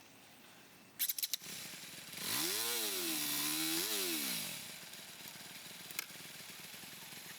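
Honda CB150R's single-cylinder engine revved up, its pitch rising, dipping slightly, rising again and falling back over about two seconds, after a few sharp clicks.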